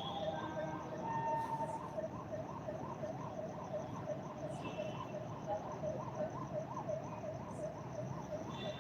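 A siren in fast up-and-down yelp mode, sweeping a little over twice a second, steady throughout.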